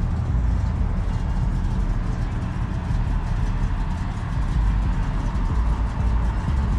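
Cars and pickup trucks driving past on a street, their engines and tyres making a steady low noise.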